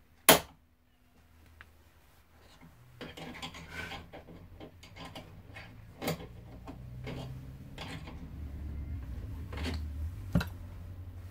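A sharp metallic click a quarter second in, then scattered clicks, knocks and rattles of metal parts being handled inside a car door's window regulator assembly, over a low hum.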